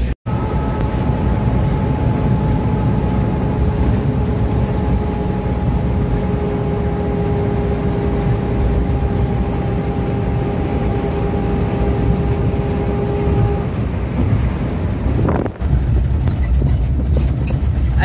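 Road noise of a car driving at steady speed, heard from inside the cabin: a low rumble of engine and tyres with a steady two-note hum that fades out about 13 seconds in. The sound cuts out briefly right at the start and again about 15 seconds in.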